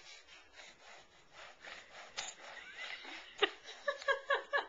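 A baby sniffling through her nose in a quick run of short sniffs. The sniffs come faster near the end, with short voiced pulses among them.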